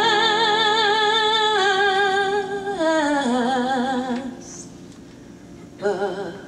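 A woman singing solo, holding a long note with wide vibrato for about three seconds, then stepping down to a lower note that fades out. After a short gap she sings a brief note near the end.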